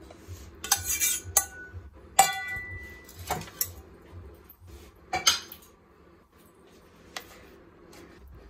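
Stainless steel bowl and spoon clinking and knocking: a handful of sharp metallic knocks, the loudest about two seconds in with a brief ring, then softer clinks.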